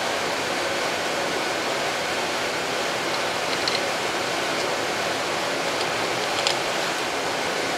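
Steady, even hiss of background shop noise, with a few faint light clicks as steel bolts are handled and started into the transaxle's aluminum housing.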